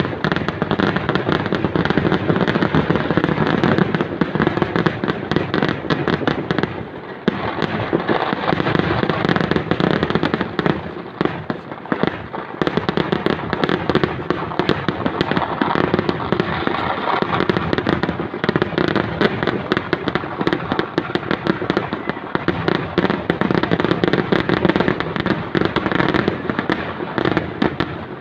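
Kerala vedikettu fireworks going off in a dense, unbroken barrage of overlapping bangs and crackling, thinning briefly about seven and twelve seconds in.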